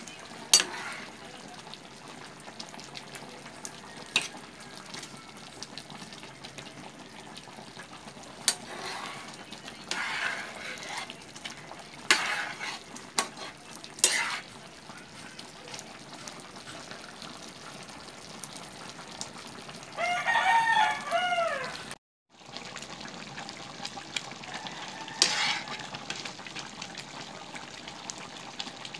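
Thickened eggplant sauce simmering in a pan with a steady hiss, a metal ladle stirring it and knocking against the pan several times. About two-thirds of the way through, a rooster crows once for about two seconds.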